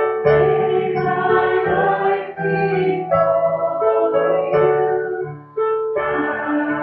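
Several voices singing a slow worship chorus over instrumental accompaniment, holding long notes. The sound dips briefly between phrases about five seconds in.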